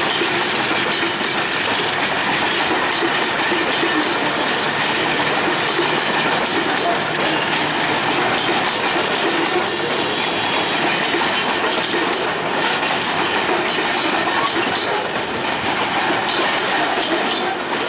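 Covered box wagons of a long freight train rolling past, their wheels clattering steadily over the rail joints in a continuous clickety-clack.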